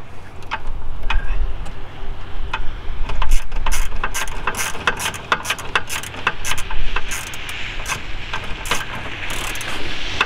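Hand ratchet clicking in quick, uneven runs as a small headlight mounting bolt is turned in.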